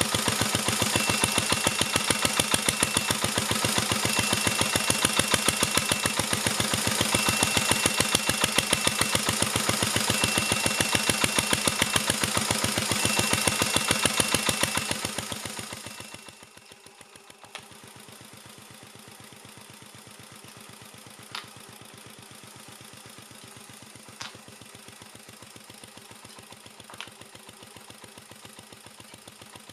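1949 Petter A1 single-cylinder air-cooled stationary engine running steadily while driving a Lucas C40 dynamo, with an electronic warning bleep sounding for about two seconds at a time, five times. The bleep is the inverter straining as the generator's voltage sags under the kettle's load. About halfway through the engine fades out, leaving near quiet with a few faint clicks.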